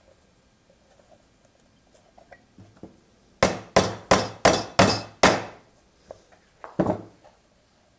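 Hammer driving small nails into the wooden panels of a bird nest box: a few light taps to set the nail, then six sharp blows in quick succession, and a couple more blows a little later.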